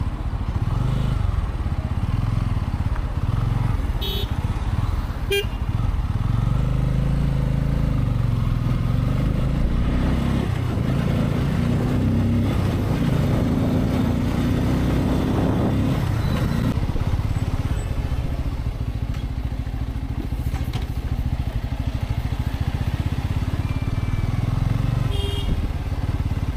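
Bajaj Pulsar N250's single-cylinder engine pulling away from a stop and accelerating along the road, its note rising in pitch as the bike speeds up. A few short horn beeps sound about four seconds in and again near the end.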